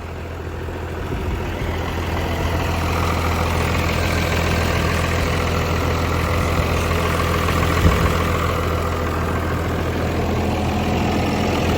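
Cummins diesel truck engine idling steadily, with one short click about eight seconds in.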